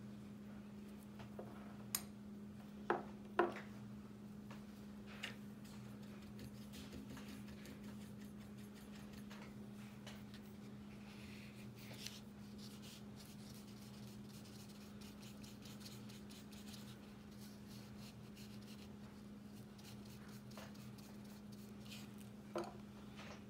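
Soft scratching of a watercolour brush stroking across paper, with a few short, sharp taps, three of them close together a few seconds in and one near the end, over a steady low hum.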